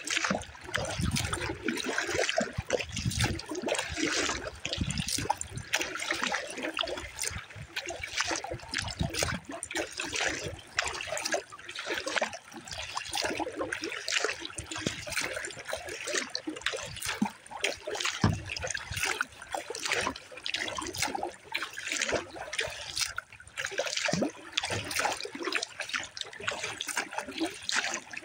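Water splashing and trickling around a kayak under way: paddle strokes dipping into the water and dripping off the blades, with small waves lapping at the hull.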